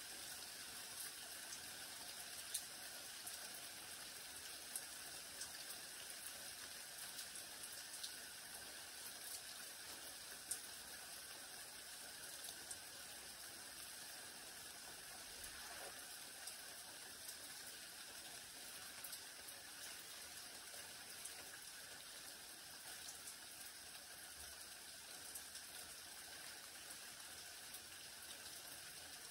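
Light rain falling steadily, with scattered single drops ticking louder now and then.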